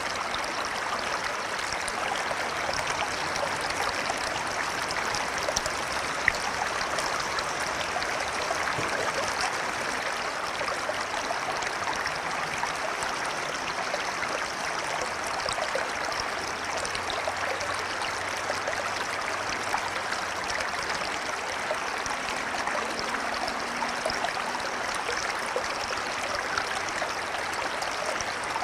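A river flowing, a steady, unbroken rush of water.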